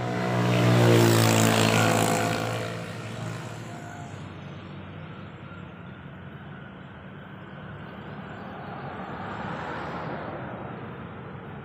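A motor vehicle passing, its engine hum swelling to loudest about a second in and fading away by about three seconds; a second, fainter vehicle swells and fades near the end.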